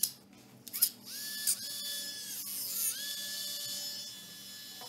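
Small electric fan motor of a modified blö wearable cooling fan: after a loud click at the start it goes quiet briefly, then spins up with a rising high-pitched whine of several tones about a second in, dips and rises again near the three-second mark, with a few handling clicks. The whine comes mainly from motor vibration.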